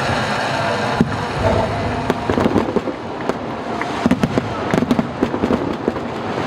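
Fireworks going off: a single sharp bang about a second in, then a quick run of crackling pops, over a steady background din.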